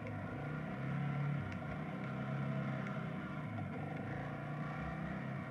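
ATV engine running with a steady drone that rises slightly about a second in.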